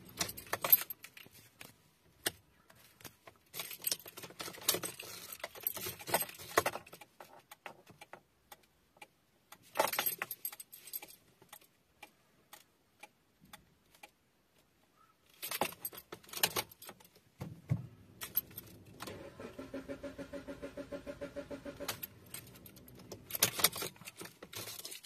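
Keys jangling and clicking inside a car's cabin in several short bursts. Near the end comes a pulsing electronic tone lasting about three seconds.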